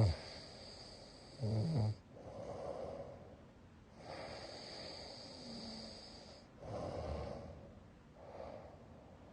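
A sleeping person snoring loudly. Two low, buzzing snores come in the first two seconds, followed by a run of softer, noisy breaths in and out.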